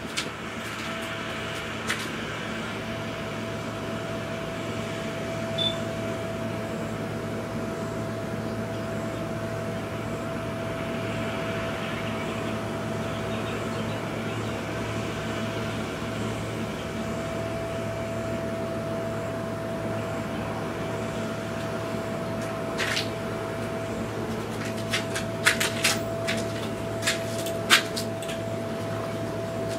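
EMD SW1200 switcher locomotive's diesel engine running steadily, a constant drone with a held whine over a low hum. A scatter of sharp clicks comes in near the end.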